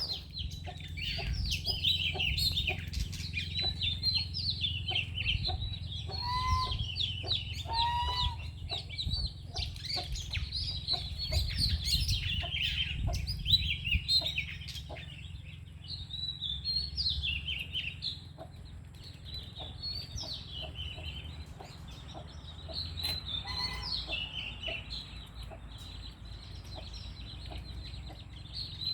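A murai songbird (Copsychus, the magpie-robin group) singing a long, rapid run of high chirping phrases, with a few lower whistled notes mixed in, over a steady low hum.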